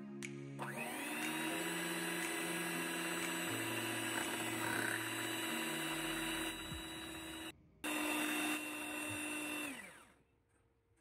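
Electric hand mixer beating a chilled cream and condensed milk mixture in a bowl. Its motor whine rises as it starts about half a second in, runs steadily with a brief drop-out, then falls away as it is switched off near the end.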